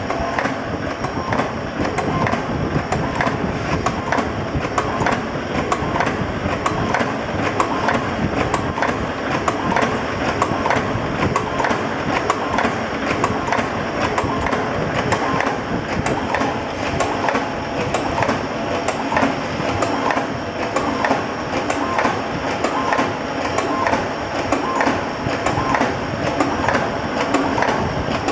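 Automatic split pin (cotter pin) making machine running, a steady, fast mechanical clatter of repeated strokes.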